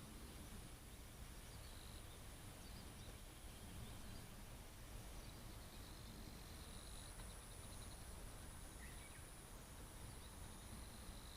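Quiet outdoor ambience with a low wind-like rumble and a few faint, short bird chirps, including a quick little trill partway through, over a steady high-pitched tone.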